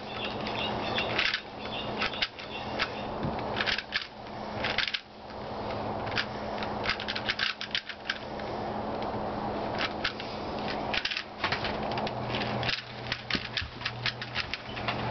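Plastic 4x4 speedcube being turned rapidly by hand during a speedsolve: a fast, irregular run of clicks and clacks as the layers snap around.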